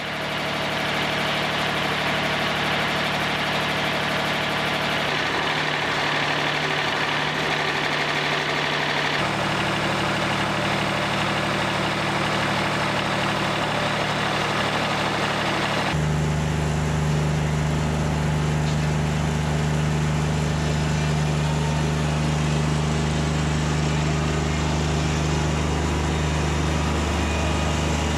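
Diesel engine of a Wood-Mizer LT40 portable bandsaw mill starting up and running, reaching full level within the first second. Its note shifts in steps at about 5 and 9 seconds, and about 16 seconds in it turns deeper and a little louder.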